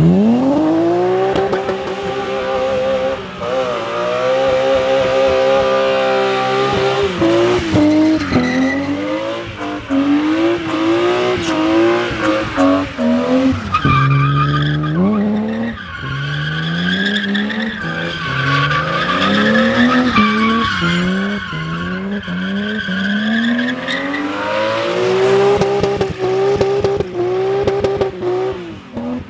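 BMW E36 doing a burnout and donuts: the engine revs sharply right at the start and is held high, its pitch rising and falling over and over as the throttle is worked, with the rear tyres squealing as they spin.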